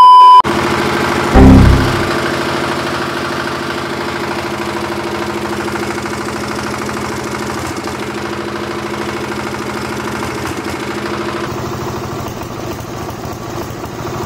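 Kirloskar diesel generator engine running steadily while deodorant spray is fed into its air intake, with one loud low bang about a second and a half in. A short electronic beep sounds at the very start.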